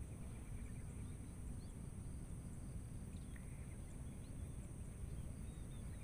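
Faint rural outdoor ambience: a steady low rumble and a steady high-pitched hum, with a few faint, short bird chirps scattered through.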